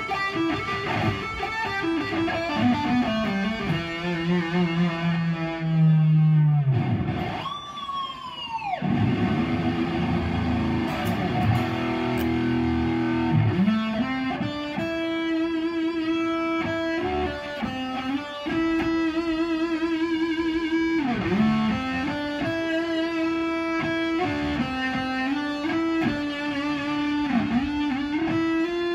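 A cheap Ibanez-copy electric guitar, rewired and set up, played through an amp in a lead-guitar demo: single-note runs and held notes. The pitch swoops sharply up and back down about eight seconds in, then dips briefly a few more times.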